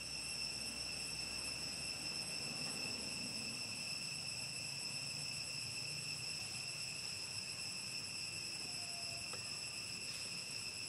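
Steady, unbroken high-pitched insect drone, one held tone with fainter higher overtones, with a faint low background hum beneath.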